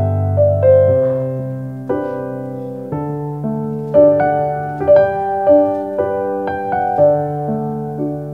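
Slow, gentle piano music, with sustained chords and a new note or chord struck every half second to a second.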